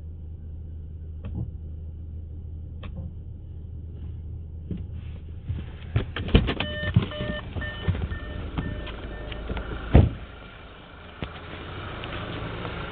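Inside a 2014 Audi A4 with a low steady hum, a few clicks, then the driver's door being opened with rattles and a repeating warning chime beeping. The door slams shut about ten seconds in, the loudest sound, followed by a steady outdoor hiss.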